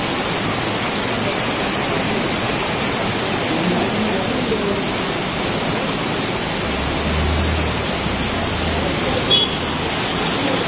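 Heavy rain pouring onto a wet paved street: a dense, steady hiss. A low rumble comes in for a couple of seconds midway, and a brief knock sounds near the end.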